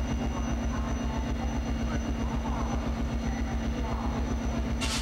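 An EMD F40PH-2 diesel locomotive idling steadily in the background, giving a low, even, rhythmic throb with a steady hum over it. A brief hiss comes right at the end.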